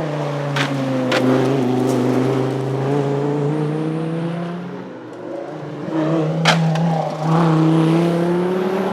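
Dodge Viper ACR's 8.4-litre V10 running under way, its pitch dropping in the first second and then holding. It eases off about five seconds in and picks up again a second later. A few sharp clicks break through.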